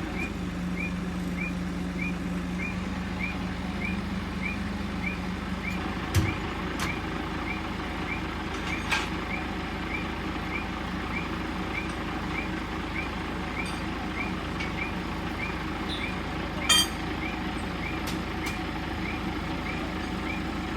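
A high electronic alarm beeping steadily, about twice a second, over a low steady hum that stops about six seconds in, with a few sharp knocks.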